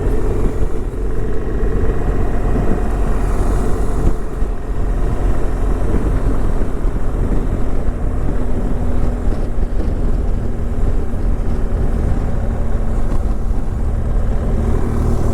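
Car driving at steady speed: a constant engine drone with road and tyre noise.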